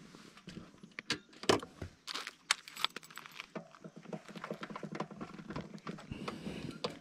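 Irregular knocks and rattles of a motorcycle being pushed by hand across the loose wooden planks of a damaged bridge. The sharpest knocks come between about one and three seconds in.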